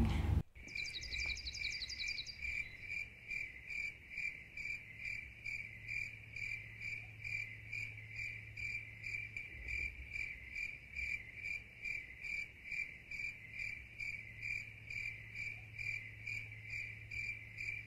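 A cricket chirping steadily, about two to three chirps a second, over a low steady hum.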